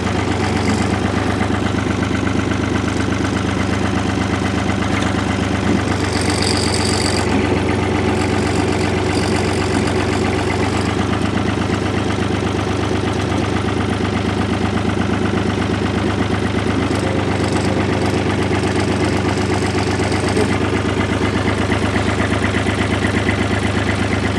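An engine running steadily at a constant speed. About six seconds in there is a brief high hiss lasting about a second.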